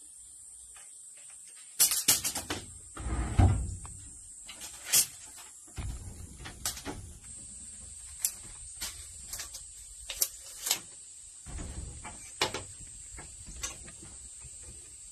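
Scattered knocks and taps as a rough wooden board and hand tools are handled on a plank floor while the board is measured and marked, with a heavier thud about three seconds in. A steady high-pitched whine runs underneath.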